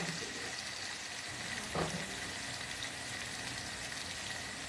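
Chicken breasts frying in oil in a countertop electric skillet, a steady sizzle, with one brief knock about two seconds in.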